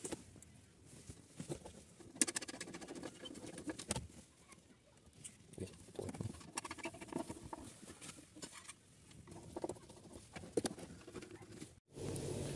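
Small handling noises of wiring a car amplifier: scattered light clicks, scrapes and rustles as a screwdriver works the terminal screws and cables are moved. Near the end the sound cuts off abruptly and a steadier background noise follows.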